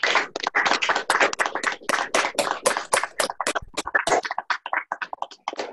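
A small group of people clapping, a quick patter of separate, sharp claps that starts suddenly.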